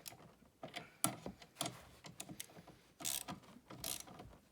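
Bolts on a recliner's handle extension being tightened with a hand tool: irregular quick clicks and a few short rasping strokes.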